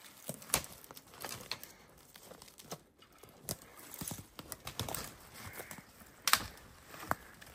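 Footsteps crunching through dry twigs, conifer needles and brush on a forest floor, with sticks snapping underfoot at an uneven pace. One sharp snap a little after six seconds is the loudest sound.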